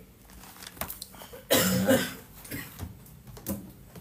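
A man coughs once, a single harsh cough about one and a half seconds in, with a few faint clicks before and after.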